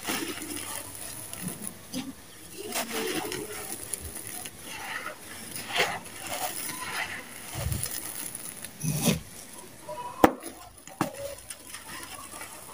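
Dry, gritty red sand-cement with small stones scooped up by hand and poured back onto the heap through the fingers: irregular crunching and trickling, with small stones clicking and a sharp click about ten seconds in, close to the microphone.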